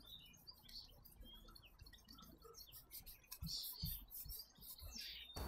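Very faint rubbing of Brasso wadding over a chrome exhaust tip to lift tar spots, with small high chirps scattered throughout and a few soft low knocks past the middle.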